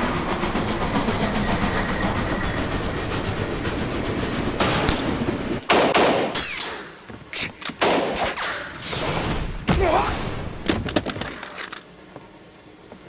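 A train's steady running rumble, then a long string of pistol shots in quick clusters, cracking over about seven seconds before stopping.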